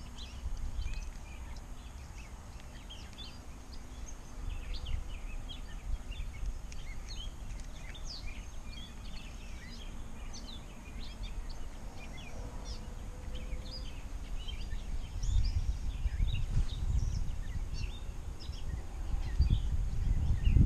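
Small birds chirping and singing all round, many short chirps. A low rumble on the microphone swells in the last few seconds.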